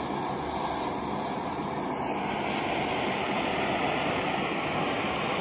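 Booster multi-fuel camping stove's burner running on diesel with a steady rushing flame noise, which turns brighter and hissier about two seconds in as the fuel bottle's pressure is built up.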